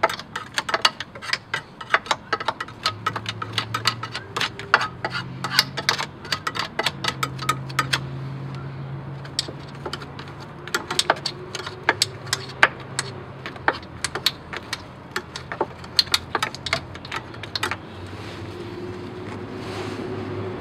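Stiff detailing brush scrubbing dried mud and grime off a steering rack and its metal lines: quick scratchy strokes and clicks, several a second, growing sparser after about eight seconds. A low hum gets louder near the end.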